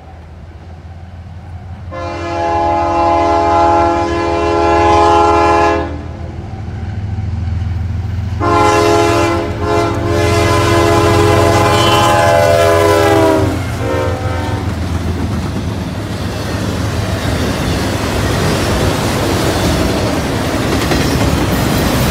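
CSX freight locomotives approaching with a steady low diesel rumble and sounding their air horn in two long blasts, the second sliding down in pitch as the lead engine passes. Then the steady rushing and clatter of autorack cars rolling past on the rails.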